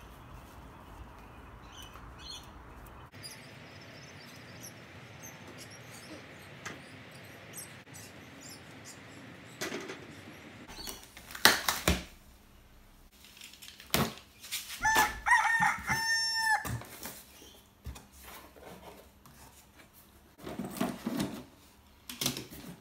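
A steady hiss for several seconds. Then a cardboard box is set down with a sharp knock, packing tape is peeled off it in several short squealing screeches, and cardboard flaps rustle as the box is opened.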